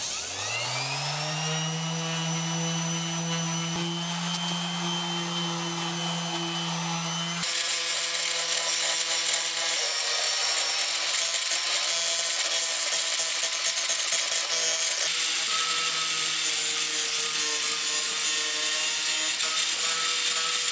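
An electric detail sander spins up and runs steadily against rusty sheet metal. About seven seconds in, it gives way to a louder angle grinder grinding rust off the steel of a car's lower door and sill.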